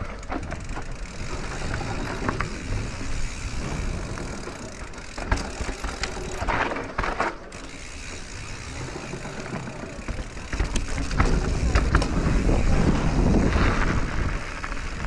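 Radon Swoop enduro mountain bike ridden fast downhill: tyres rolling over dirt and roots, with the bike's parts clicking and rattling over the bumps. The rolling rumble gets louder in the last few seconds as it runs out onto a gravel track.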